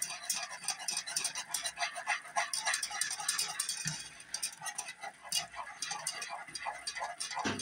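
A wire whisk stirring boiling sugar syrup in a Granitestone saucepan. Its tines click and scrape against the pan in quick uneven strokes over the bubbling of the syrup.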